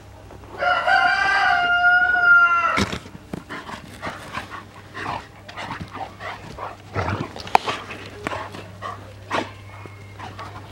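Tornjak and Bucovina shepherd dogs wrestling in play. A loud, drawn-out high cry lasts about two seconds near the start, then many short scuffling sounds follow.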